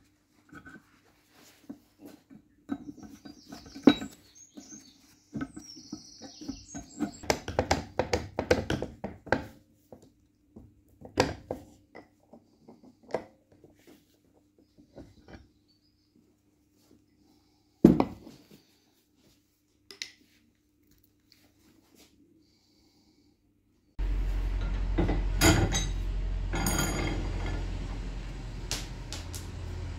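Rusty cast-iron bench vice being worked by hand: scattered metallic scrapes, clinks and knocks with quiet gaps, one sharp knock partway through. Near the end a steady low background noise sets in and a long steel bar clanks against the vice a few times.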